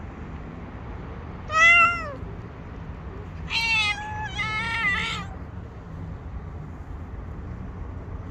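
Tabby cat meowing: one short, loud meow, then about two seconds later a longer meow in two parts, over a steady low background hum.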